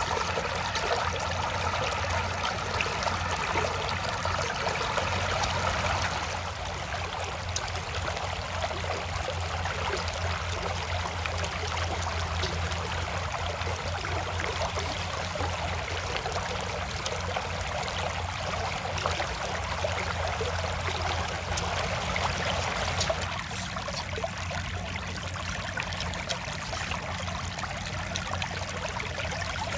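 Shallow floodwater rushing and trickling steadily over a low rock and through flattened grass, a continuous running-water sound. It drops slightly in level about six seconds in and again near the end.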